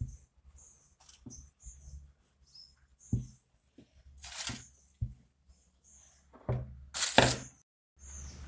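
Scattered light knocks and taps of kitchen things being handled on a counter while a pie crust is measured and rolled out, a few seconds apart.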